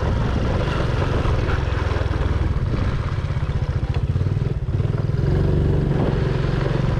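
Motorcycle engine running as the bike rides along, heard from on board. It eases off briefly about four and a half seconds in, then pulls again at a slightly higher, steady pitch.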